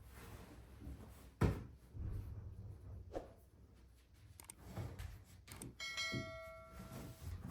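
Household handling sounds while tidying a room. There is a sharp knock about a second and a half in, then softer thumps and clatter, and a brief ringing chime from a struck object near the end.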